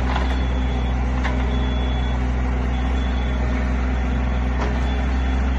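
Kobelco SK23 mini excavator's diesel engine running steadily while the arm and bucket are worked on the hydraulics, with a couple of faint clicks.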